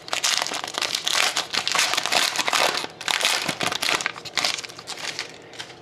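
Plastic wrapper of a hockey card pack crinkling as it is torn open and handled. The dense crackling fades off over the last second or so.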